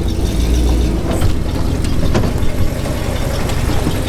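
Jeep CJ5 engine running at idle, with a few light knocks over the steady rumble.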